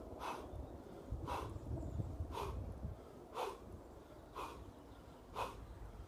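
A man's sharp, forceful exhales during behind-the-neck overhead presses, one with each repetition, six in a row about a second apart.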